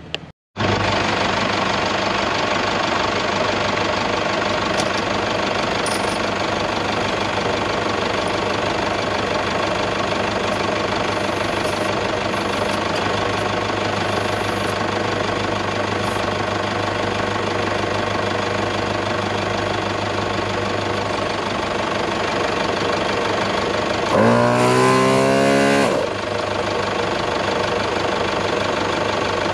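Thumper Max Dual MkII portable air compressor starting up and running steadily, pumping up a 4x4 tyre let down to 15 psi. About 24 seconds in, a louder rising whine sounds over it for about two seconds.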